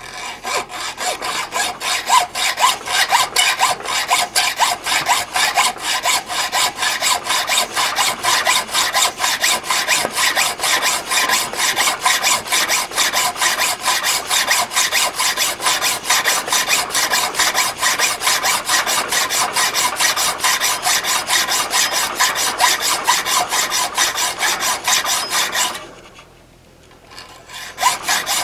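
Hacksaw cutting through a 4140 steel bar clamped in a vise: a steady rhythm of back-and-forth rasping strokes. The strokes pause briefly near the end, then start again.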